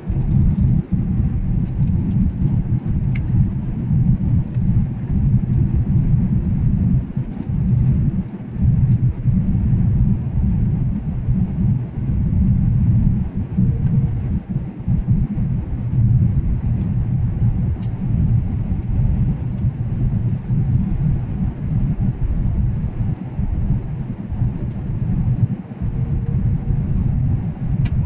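Steady low rumble of jet airliner cabin noise during descent, engines and airflow heard from a window seat.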